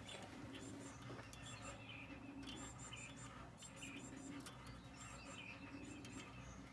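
Faint, scattered bird chirps over a quiet low background hum.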